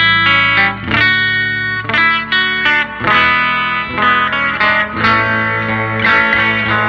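Telecaster electric guitar played through a 1968 Fender Vibrolux tube amp: chords strummed about once a second and left to ring over a sustained low note, with a slight edge of breakup.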